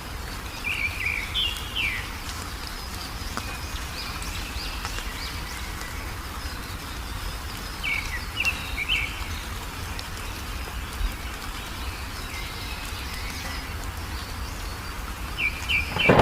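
Wild songbirds chirping in short runs of quick high notes about a second in, around eight seconds in and again near the end, over a steady low background rumble.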